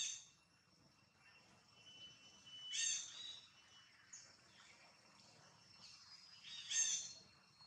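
Baby macaque giving three short, high-pitched squealing cries, a few seconds apart: the begging cries of a hungry infant wanting milk.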